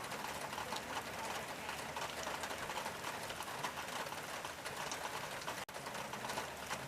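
Rain falling on a tin roof: a steady, dense patter of drops, with many small sharp ticks on the metal. It cuts out for an instant about three-quarters of the way through.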